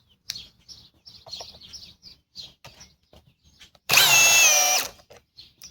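A Ridgid high-torque cordless hammer drill runs in one short burst of just under a second, about four seconds in. Its motor whine holds a pitch that dips a little and comes back. Birds chirp quietly throughout.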